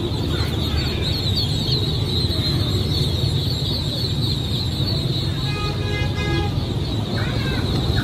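Dense, continuous peeping of hundreds of newly hatched ducklings crowded in baskets, over a steady low rumble. A short pitched tone sounds about six seconds in.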